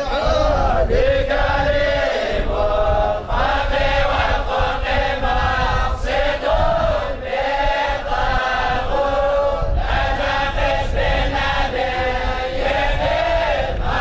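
A group of men chanting together in unison, a religious chant sung in repeating melodic phrases.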